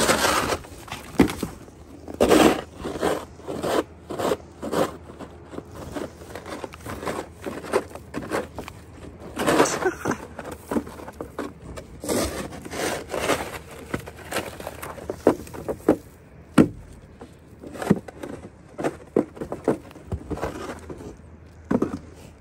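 Irregular crunching and scraping of packed snow underfoot: footsteps on a snow-covered wooden deck.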